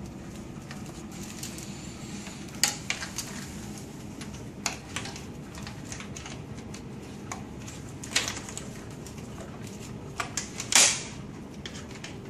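Plastic CRRT tubing lines and clamps being handled and clipped into place on the front of the machine: a handful of sharp plastic clicks and clatters spread through, the loudest a little before the end, over a steady low hum.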